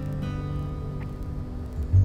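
Background music: acoustic guitar chords ringing out, with a new strum just before the end.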